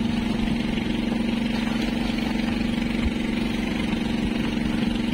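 Fishing boat's engine idling, a steady even hum, with a light knock about three seconds in.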